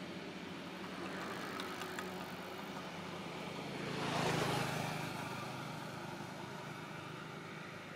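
A motorbike passes by on the road, growing louder to a peak about halfway through and then fading away, over a steady low background hum.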